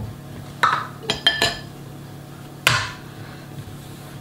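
Kitchen utensils and containers clinking and knocking against a glass bowl and a countertop as they are handled and set down. There are a couple of short clinks about half a second in, a quick cluster just after a second, and one louder knock with a brief ring near three seconds.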